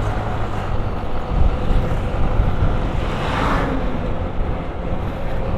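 Motor scooter engine running steadily while riding, under rushing wind noise on the action-camera microphone, with a brief swell of hiss about halfway through.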